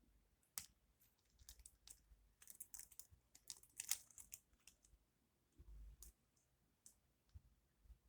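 Beads clicking against one another as they are handled for a bracelet: a quick flurry of small sharp clicks over the first half, then a soft low thump and a few scattered clicks.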